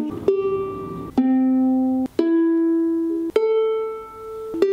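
Kala Elite 3KOA solid-koa soprano ukulele strummed five times while being tuned, each open chord ringing out for about a second.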